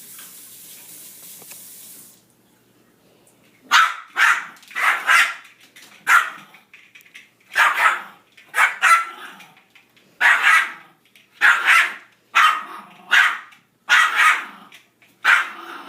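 A dog barking over and over, about one bark a second, starting some four seconds in: the pet's bark when it is time to feed the hummingbirds. A steady hiss cuts off about two seconds in.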